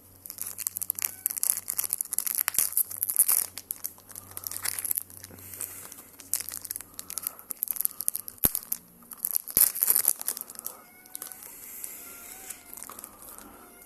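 Foil booster-pack wrapper crinkling and Pokémon cards rustling as they are handled, an irregular crackle with a few sharp clicks.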